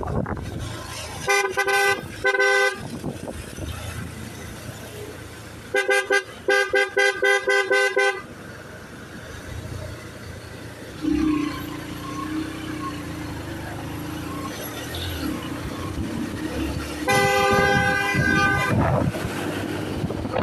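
Vehicle horns honking in road traffic: two short honks, then a rapid string of toots lasting about two seconds, and one longer honk near the end, over steady traffic noise.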